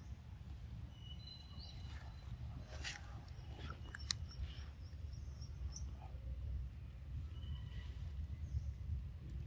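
Outdoor forest ambience: a steady low rumble with a few short, high bird chirps, and a couple of sharp clicks about three and four seconds in.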